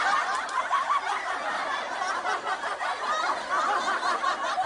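Laugh track: many people snickering and chuckling together, an even, dense crowd laughter.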